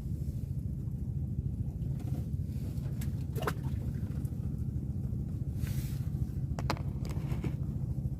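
Small boat's engine running steadily with a low rumble, with a few light knocks and clicks over it.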